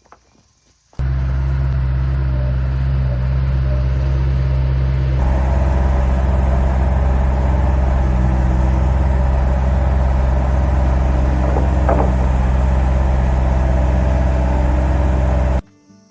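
An engine running steadily. It starts abruptly about a second in, gets louder about four seconds later, and cuts off abruptly near the end.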